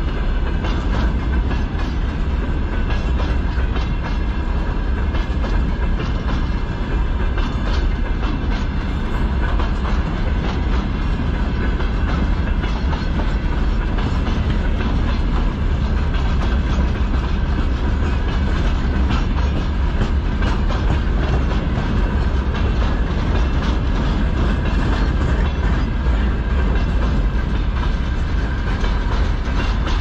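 Freight train of open gondola wagons and hopper cars rolling past, steel wheels clattering over the rail joints over a steady heavy rumble.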